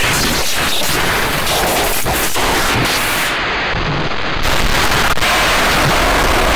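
Harsh digital noise music: a dense, loud wall of static and distortion cut with sharp clicks and pops. About three seconds in, the high end cuts out abruptly for about a second, then the noise comes back slightly louder.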